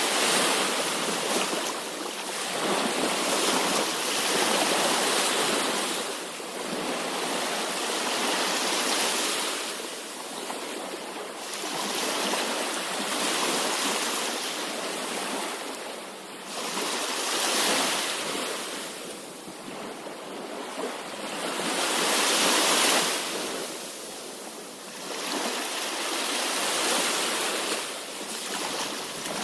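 Sea waves surging, a steady wash of water noise that swells and falls back every few seconds.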